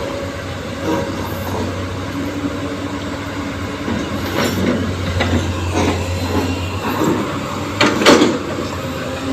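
Heavy diesel machinery running steadily with a low hum, with a few sharp knocks and scrapes about halfway through and near the end, as rubble is loaded into a dump truck.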